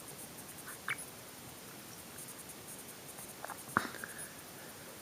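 Faint light taps and clicks of a cat batting at a hair tie, with one sharper click a little before the end.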